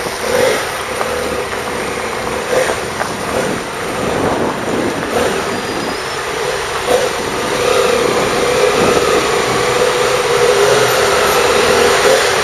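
Motorcycle engines running at low speed as several bikes move off together, with a steady engine tone that grows slightly louder in the second half.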